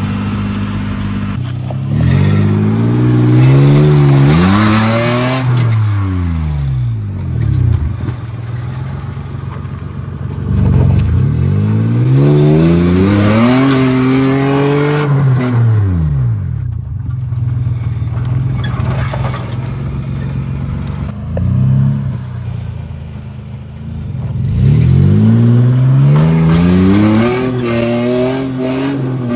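Supercharged Nissan pickup engine revving up and easing off three times under load as the truck on 35-inch tyres climbs a dirt slope. The tyres spin, scrabbling and throwing gravel.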